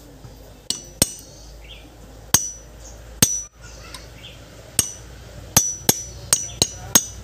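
Heavy hammer striking steel parts of a power steering rack during a rebuild: about ten sharp metal-on-metal knocks, each with a brief high ring. The knocks are spaced out at first and come faster, about three a second, near the end.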